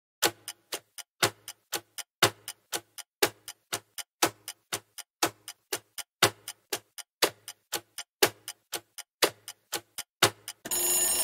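Countdown-timer sound effect: clock-like ticking at about four ticks a second, with a louder tick on each second. Near the end the ticking gives way to a steady ringing alarm as the time runs out.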